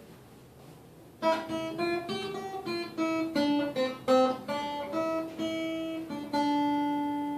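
Acoustic guitar playing a short melodic phrase of plucked notes, one after another, starting about a second in, with the last note left ringing.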